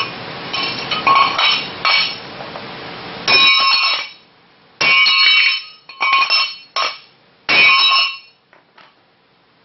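Hammer blows on a quarter-inch-thick extruded aluminum channel, about nine strikes, each ringing briefly with a bright metallic tone. The channel takes the blows without bending.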